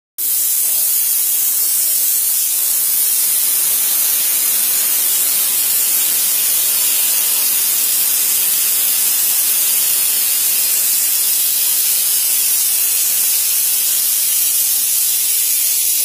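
Steam blowing off from the outlet pipe of a small electric-heated steam boiler: a loud, steady, high hiss.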